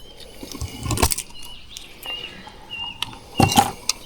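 A bird calling with a run of short, high, repeated notes, over a few sharp knocks and clicks.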